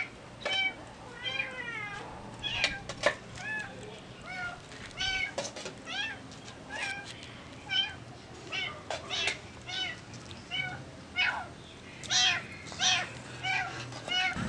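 An animal crying over and over in short, high calls, one or two a second, each rising and falling in pitch.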